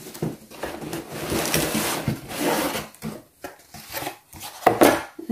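Cardboard packing insert being slid and pulled out of a toy's cardboard box, scraping and rubbing against the box, with a louder scrape about three quarters of the way through.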